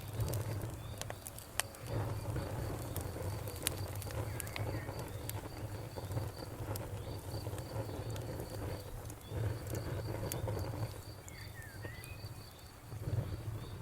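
Campfire crackling, with sharp pops now and then over a low rumble. Crickets chirp in a steady pulse behind it.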